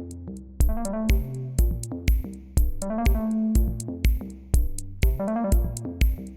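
Electronic music: a steady drum-machine beat of about two kicks a second with sharp hits between them, under a synthesizer melody.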